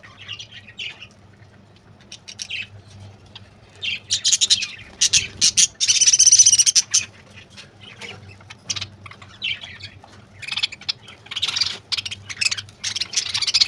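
A flock of small caged parrots chattering and squawking in repeated bursts, loudest about six seconds in, over a faint low steady hum.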